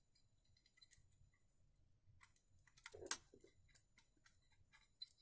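Quiet, scattered small clicks of metal parts and tools being handled during soldering work, with one louder click and a brief rustle about three seconds in.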